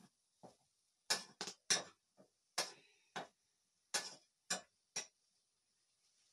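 Metal ladle clinking and knocking against a metal cooking pot as leafy greens are stirred: about ten short, sharp clinks at uneven intervals, stopping about a second before the end.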